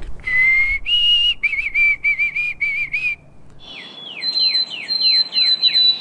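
White-throated sparrow singing its 'Oh sweet Canada, Canada' song: a clear whistled note, a higher held note, then a run of quick, wavering repeated notes. After a short pause, more whistled birdsong follows: a quick series of notes sliding downward over a long, high, steady whistle.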